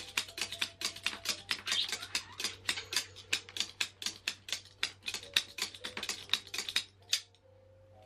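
Vintage 1970s tufting tool punching yarn in rapid, even clicks, about five or six a second, stopping about seven seconds in.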